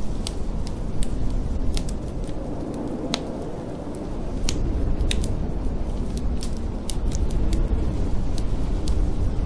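Wood fire crackling in a fireplace, with irregular sharp pops, over a steady low rush of blizzard wind.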